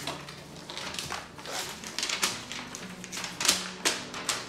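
Paper rustling and crinkling as a folded letter is drawn out of its envelope and unfolded, in irregular crackles, the loudest about three and a half seconds in.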